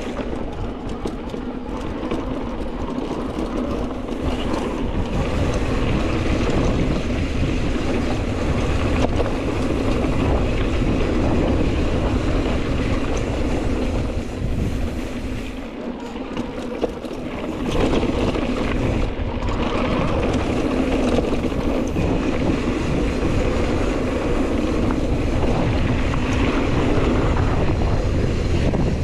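Wind buffeting the microphone of a handlebar-height action camera while a mountain bike rolls downhill. The bike's tyres run over a loose dirt singletrack, and the rush dips briefly about halfway through before picking back up.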